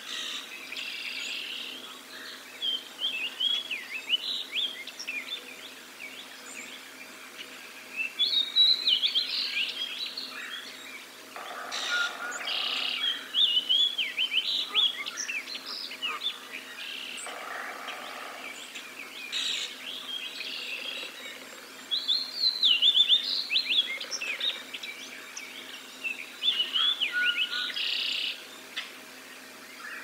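Songbirds singing in repeated fast, warbled phrases of rising and falling notes, several birds overlapping. Twice, about a third of the way in and again a little past halfway, a short, rougher and lower call of about a second cuts in. A faint steady hum runs underneath.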